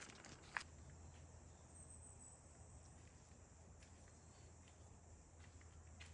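Near silence: faint outdoor quiet with a steady low hum, one soft click just over half a second in and a few faint ticks.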